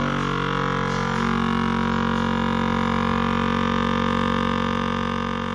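FoodSaver vacuum sealer's pump running with a loud, steady drone as it draws the air out of a plastic bag, the pitch shifting slightly in the first second.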